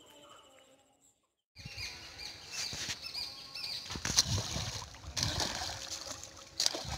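A hooked snakehead thrashing and splashing at the surface of shallow river water as it is played on a rod, with several sharp splashes in the second half. Before this, about a second of faint birdsong breaks off into a short silence.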